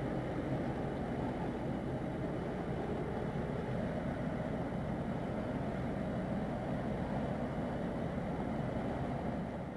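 Steady low rumble of ship engines, with no change in pace, dying away right at the end.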